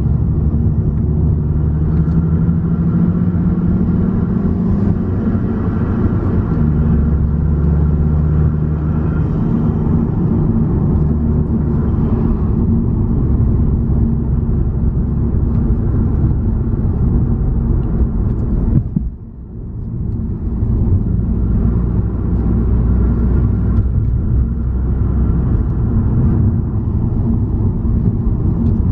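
Car engine and road noise heard from inside the car as it climbs a mountain road, the engine note shifting with throttle. Near two-thirds of the way through, the sound drops away sharply for about a second, then comes back.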